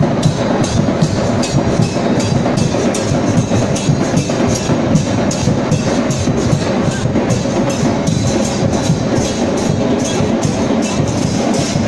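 Procession drums beaten loudly in a fast, steady rhythm, about three to four strokes a second, over the noise of a street crowd.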